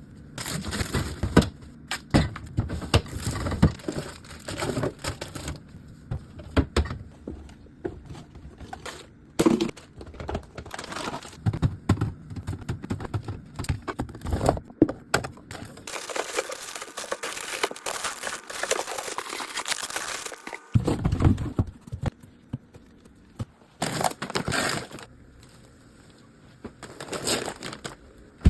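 Groceries being put into a fridge: packaging crinkling and rustling, with irregular knocks and clatters of containers set on the shelves. The rustling is densest for a few seconds past the middle.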